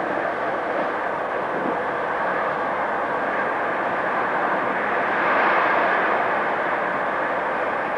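Train in motion: a steady running noise of wheels and rails, swelling slightly about five seconds in.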